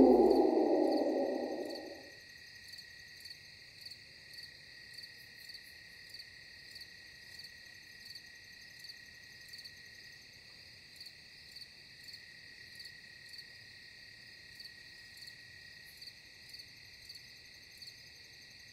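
A wolf howl falls in pitch and dies away over the first two seconds. It leaves a night chorus of crickets: a faint, steady high trill with soft chirps repeating a little under twice a second.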